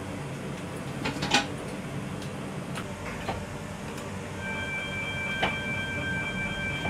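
Electric tram running, a steady low hum with a few clicks and knocks from the cabin. About four and a half seconds in, the tram's warning horn starts: a steady high-pitched tone that holds.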